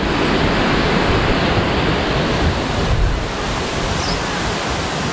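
Strong gusty wind blowing over the microphone: a loud, continuous rushing noise that eases slightly after about three seconds.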